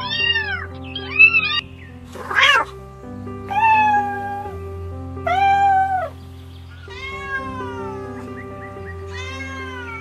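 Kittens meowing in short, high-pitched, arching cries, then a brief harsh cry, followed by four longer cat meows, some falling in pitch, over soft background music with steady held notes.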